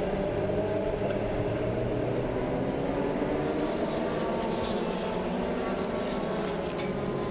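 Several Formula Renault single-seater race cars' engines running together, their overlapping engine notes slowly rising and falling as the pack passes.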